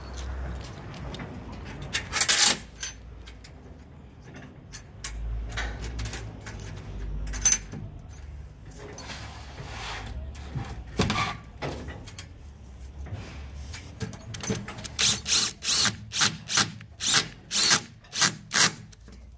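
Metal clamp hardware handled and clicked into place on an aluminium rail. Near the end, a cordless drill drives the universal mid clamp's bolt down in about ten short bursts, roughly three a second.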